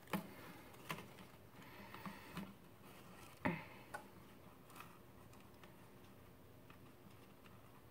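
Faint, scattered clicks and ticks of a thin metal pry tool working under an LG G5's display glass, the loudest about three and a half seconds in, thinning out after about five seconds.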